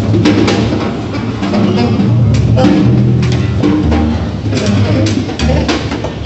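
Free improvised music from a double bass, a saxophone and a stick-struck drum. Low bass notes are held under sharp drum hits that fall at irregular times, with no steady beat.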